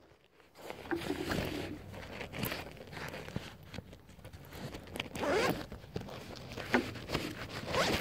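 A zipper being pulled open in several scratchy strokes, with fabric rustling and handling noise as hands work at clothing or a bag right by the phone.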